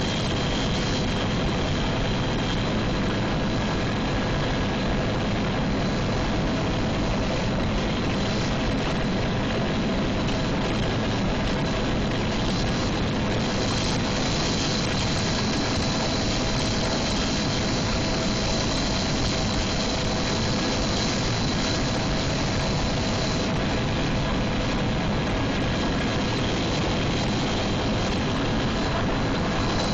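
UH-1 Huey helicopter in flight heard from inside the cabin: a loud, steady drone of turbine and rotor with a few faint whining tones running through it.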